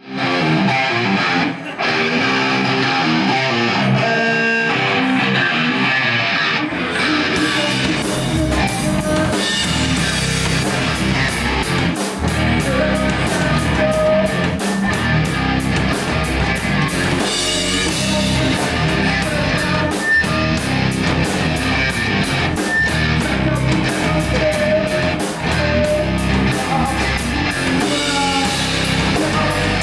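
Live heavy rock band playing electric guitars, bass and drums. For the first seven seconds or so the guitars play with little low end; then the bass and drums come in and the full band plays on at a steady loud level.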